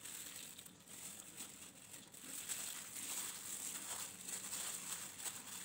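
Faint crinkling of a plastic-bag glove and soft rustling of flour as battered chicken pieces are turned and pressed into dry flour in a plastic tub. It gets a little louder about two seconds in.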